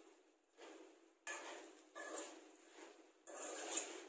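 Steel spoon stirring and scraping chunks of masala-coated mutton around a nonstick kadai, in a run of about five strokes, each about half a second long.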